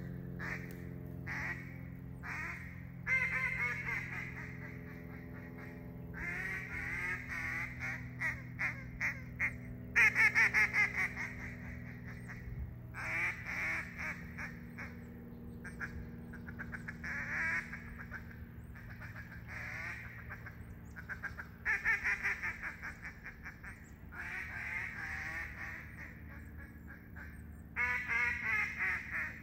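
Custom duck call of green-dyed burl with a cocobolo toneboard, blown in a series of duck quacks. There are single quacks, a few drawn-out notes, and fast runs of quacks that start loud and taper off.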